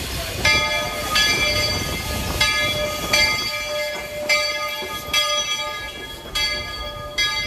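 Walt Disney World Railroad steam locomotive's bell ringing, struck about once a second, each stroke ringing out and fading: the signal that the train is about to pull out of the station.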